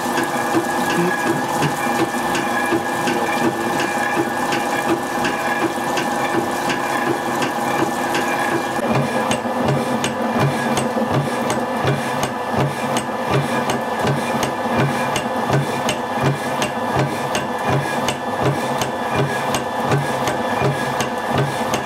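Hydraulic oil press pump running under pressure while it squeezes walnut paste: a steady hum with a regular mechanical knocking. The knocking grows stronger about nine seconds in and settles at about two to three strokes a second.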